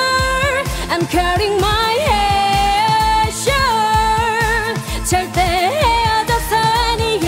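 Women singing a K-pop song live over a backing track with a steady drum beat. The singing has held, wavering notes and sliding runs.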